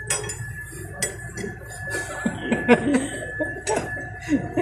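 Metal clinks of a combination wrench on the hydraulic hose fittings of a forklift's power steering: several sharp clinks, roughly a second apart.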